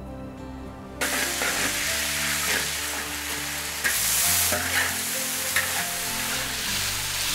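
Potato slices and meat sizzling as they stir-fry in a hot oiled wok, starting suddenly about a second in, with a louder surge of sizzle near four seconds and a spatula stirring and scraping against the wok.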